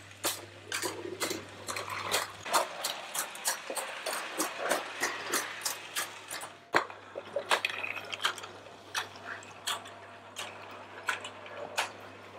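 Mamod SL1 live-steam tank locomotive running under steam on its track: a rapid string of chuffs and clicks over a sputtering steam hiss. There is one sharper knock about seven seconds in.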